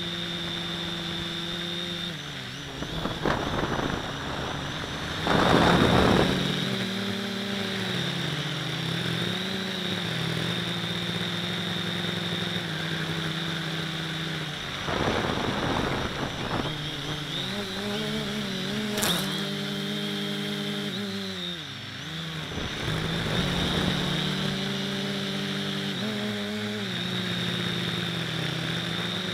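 Neewer FPV quadcopter's motors and propellers buzzing with a high steady whine, the pitch dipping and rising again and again as the throttle changes. A few short bursts of rushing wind noise come through, the loudest about six seconds in.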